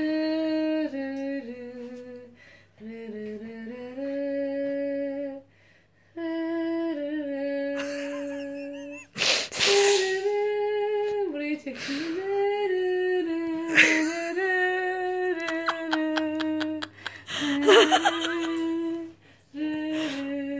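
A woman humming a wordless tune in held notes that step up and down, with short pauses. Several brief, loud, noisy bursts and a quick run of clicks break in partway through.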